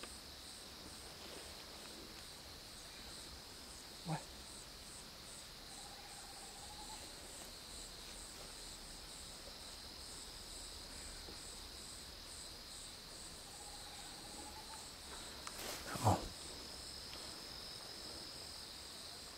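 Night insect chorus: a steady high-pitched trill with a second insect pulsing about twice a second above it. Two brief knocks, about four seconds in and again near the end.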